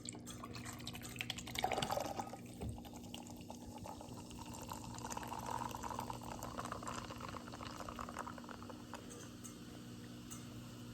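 Red Bull energy drink being poured into a glass, the liquid running with a fine fizzing crackle, swelling about two seconds in and again in the middle.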